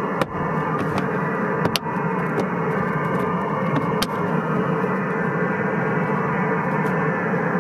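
Radio baseball broadcast playing through the newly installed rear-deck speaker of a 2007 Honda Civic, between the announcer's calls: a steady, narrow-sounding rush of noise without commentary. A few sharp clicks sound over it near the start and about four seconds in.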